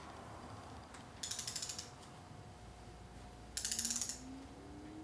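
Ratchet-head torque wrench ratcheting in two short bursts of rapid clicks as it is swung back and forth, tightening a lower intake manifold bolt.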